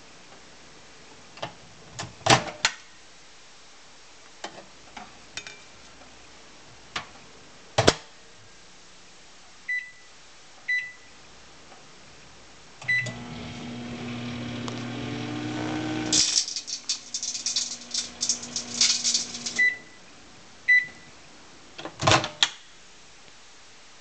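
Microwave oven with a CD inside: a few clicks and knocks, keypad beeps, then the oven starts with a steady hum that grows louder. About three seconds after that, the CD's metal layer arcs with a rapid, sharp crackling of sparks for about three and a half seconds. The crackling ends as the oven beeps twice, and a few clicks follow near the end.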